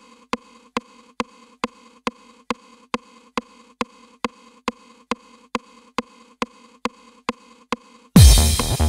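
Opening of a trance track: a sharp click ticking a little over twice a second over a faint steady droning tone. About eight seconds in, the full track comes in loudly with a heavy kick drum and synths.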